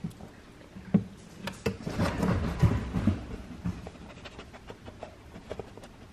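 Stainless steel dog bowls knocking and clinking as they are set down on a freezer shelf, with a denser stretch of rough noise about two to three seconds in and a few light clicks after.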